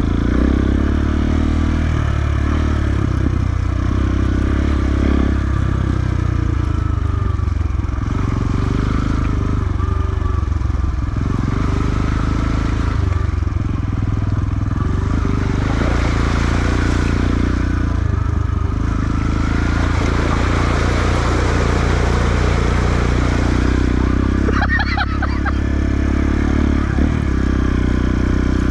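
Motorcycle engine running steadily, with little change in pitch.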